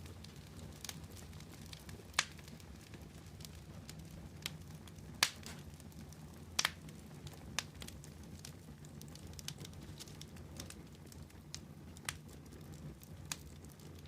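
Burning logs in a campfire crackling, with irregular sharp pops and cracks, about half a dozen loud ones spread through, over a steady low rumble.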